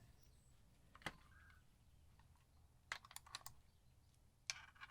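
Faint, light clicks of small metal mounting hardware being handled: one click about a second in, a quick run of clicks around three seconds, and a short rattle near the end.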